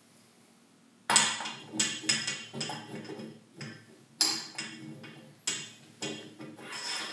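Metal parts knocking and clanking together as they are handled: a string of sharp, irregular metallic knocks with a short ring, starting about a second in.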